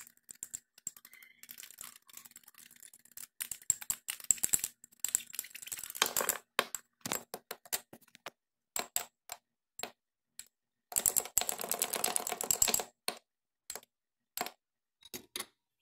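Fork beating egg white in a small ceramic bowl, its tines clicking rapidly against the bowl in fast runs, with a few single taps between them.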